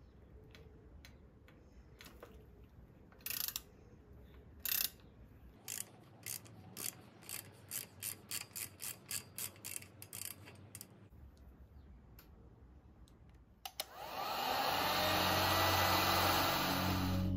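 Clicks from a hex tool turning in a crank-arm bolt, two single clicks and then a steady run of about two to three a second for several seconds. About fourteen seconds in, a heat gun starts up and runs with a loud, steady blowing hiss.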